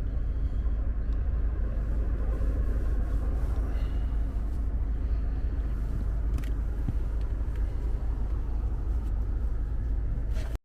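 Steady low rumble of a car running, heard from inside the cabin, with a few faint clicks; it cuts off suddenly at the end.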